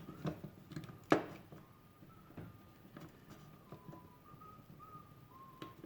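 Someone softly whistling a wandering tune, held notes stepping up and down in pitch, over small clicks and taps of handling parts, with one sharp click about a second in.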